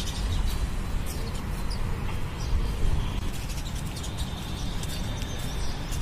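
House sparrows chirping faintly, a few scattered short chirps, over a steady low rumble.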